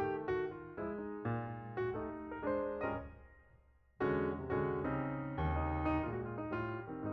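Background piano music: notes played one after another, fading out about halfway and starting again suddenly about four seconds in.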